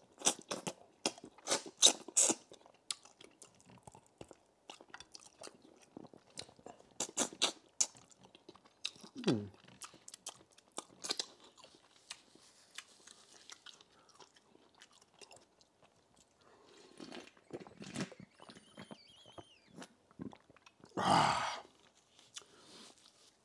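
A person chewing food close to a clip-on microphone, with many short crunches and clicks scattered through the chewing. A brief low hum comes about nine seconds in, and a louder rush of noise about a second long comes near the end.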